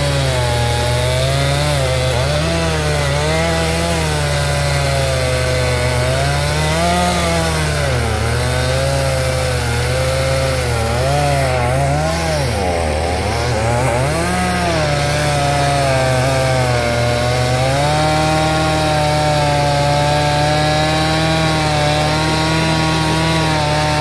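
Chainsaw cutting through a fallen tree trunk, its engine pitch dipping and recovering over and over as the chain bites into the wood, then holding steady for the last several seconds.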